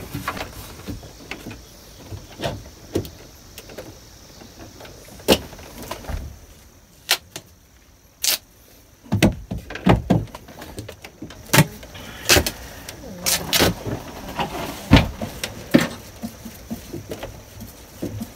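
Irregular clicks, knocks and rattles of hands working on an old boat steering cable and its fittings, quieter for a couple of seconds midway.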